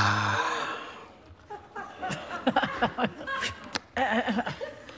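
A group of people laughing and murmuring in reaction to a joke. The loudest part comes at the start and dies away over a second or so, then low, scattered chuckles and murmurs follow.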